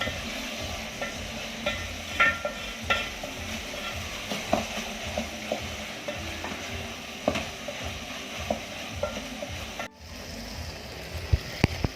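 Onions, garlic, green pepper and hot pepper frying in oil in a pot with a steady sizzle, stirred with a spoon that scrapes and clicks irregularly against the pot. The sound drops out briefly near the end, then a few sharper knocks follow.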